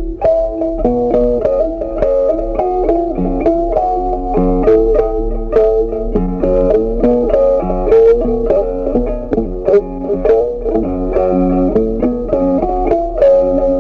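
Background music: a plucked guitar playing a quick run of notes over a bass line.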